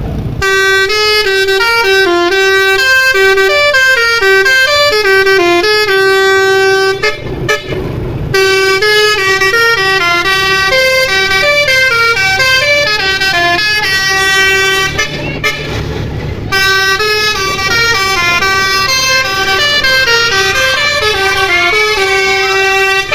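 Basuri-type multi-tone telolet bus air horn playing a long melody: several trumpet tones sound together and step up and down in pitch from note to note. It pauses briefly twice, about seven and fifteen seconds in.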